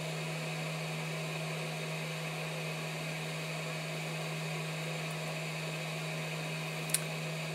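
YAOGONG 8878D hot air gun's fan blowing steadily at high speed with a constant hum, in its automatic cool-down: the gun rests in its stand with the heater off and the fan turned up until the temperature falls to 100 degrees and it shuts off. A single short click near the end.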